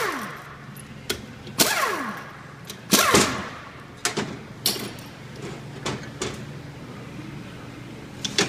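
Metal parts of a GM Turbo-Hydramatic 400 transmission's front pump clanking as it is handled and taken apart: about half a dozen sharp knocks, several ringing on with a tone that falls in pitch, over a faint low steady hum.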